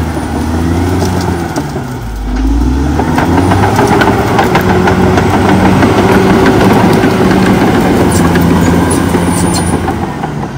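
Caterpillar D6R XL bulldozer's diesel engine working as the dozer pushes through brush, dipping in pitch about two seconds in, then rising and holding steady and louder. Scattered sharp clanks and cracks come through over the engine.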